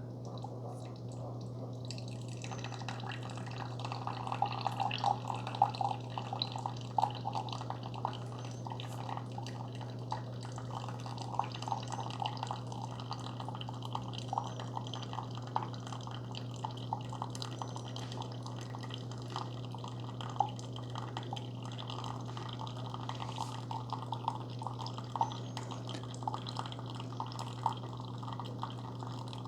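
Keurig K-Supreme Plus Smart single-serve coffee maker mid-brew on its Intense strength setting: a steady low hum from the machine, with coffee streaming and dripping into the mug from about two seconds in, small irregular splashes on top.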